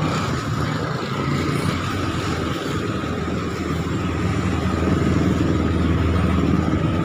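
Motorcycle engine running steadily, growing a little louder in the second half.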